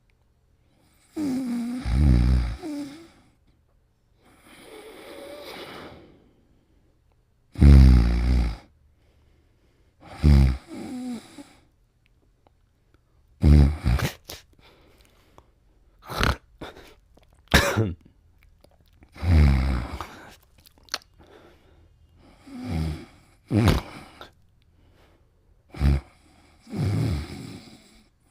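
Irregular snoring during sleep: about a dozen snores and short snorts, one to three seconds apart. Some are drawn out with a pitch that wavers up and down. The loudest comes about eight seconds in.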